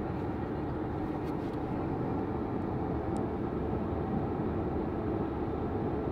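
Steady road and engine noise inside a moving car's cabin, an even low rumble.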